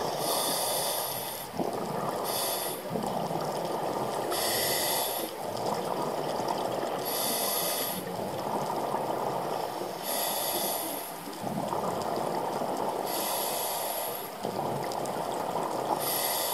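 Scuba diver breathing through a regulator underwater: a hissing inhale about every two to three seconds, each followed by a longer bubbling exhale.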